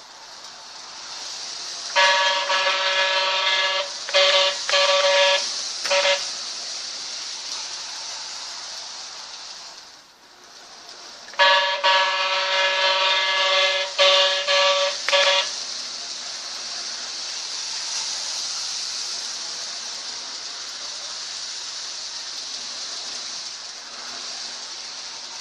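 Lionel toy train running on its track with a steady high hiss, twice sounding its built-in train horn, each time one long blast followed by three short ones.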